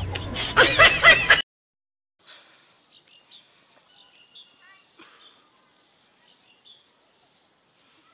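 Loud voices and laughter for about a second and a half, cut off abruptly. After a short silence comes faint rural outdoor ambience: a steady high hiss with a few short bird chirps.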